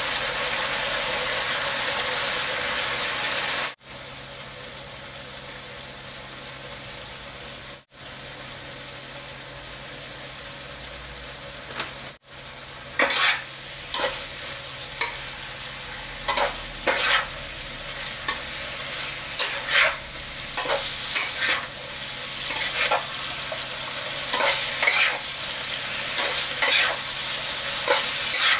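Long eggplant slices and minced pork sizzling in a nonstick wok. A steady hiss drops in level a few seconds in. About halfway through, a spatula starts stirring and scraping the pan in quick, irregular strokes over the sizzle.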